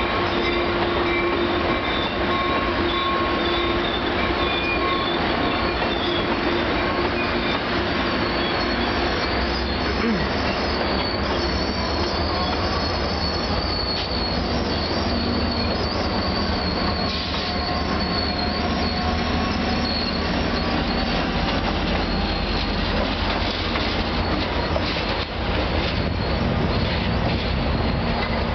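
Metrolink commuter train of bilevel coaches rolling slowly into a station platform, steel wheels on rail giving a steady rumble and high held squeals. Near the end the pushing EMD F59PH diesel locomotive draws alongside.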